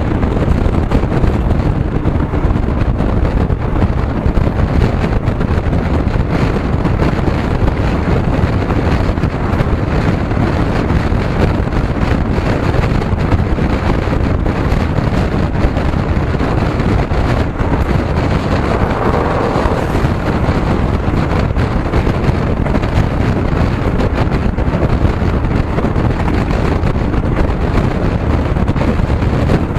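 Steady wind noise buffeting the microphone over the low rumble of a moving vehicle.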